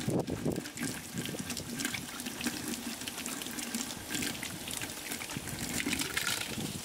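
Water running from an outdoor tap and splashing into a wok as it is rinsed and washed by hand.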